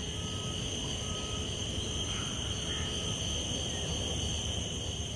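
A steady, high-pitched drone of insects, an unbroken chorus of several shrill tones, over a low rumble.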